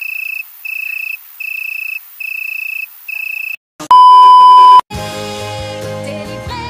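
A run of about five high electronic beeps, each about half a second long with short gaps. Then a very loud steady test-tone beep over TV colour bars lasts about a second and cuts off sharply, and music with singing begins.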